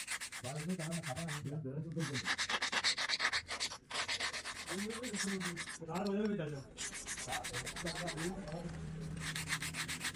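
Rapid, rhythmic scraping and rubbing strokes, like sanding or filing a part by hand, breaking off briefly a couple of times.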